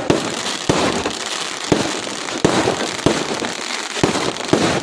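Fireworks going off: about seven sharp bangs at uneven intervals of roughly half a second to a second, over a steady noisy hiss.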